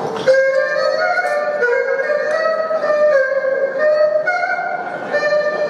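Erhu playing a melody of held notes, with slides between some of them.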